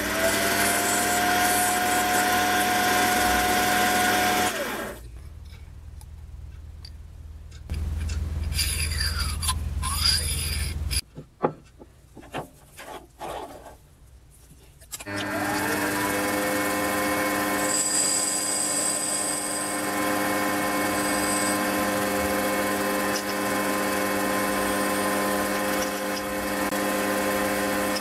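Small metal lathe spinning up, its motor tone rising and settling, then running steadily and stopping about five seconds in. After a stretch of low rumble and a few knocks, the lathe starts again, rising to speed about fifteen seconds in, and runs steadily to the end.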